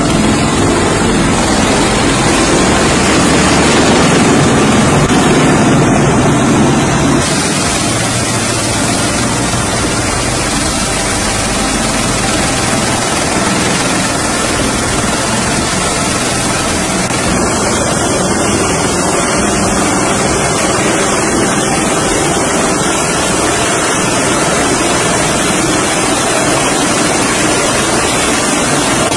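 Bell Boeing V-22 Osprey tiltrotor's twin turboshaft engines and proprotors running loud and steady on deck, with wind buffeting the microphone. The sound drops slightly about seven seconds in.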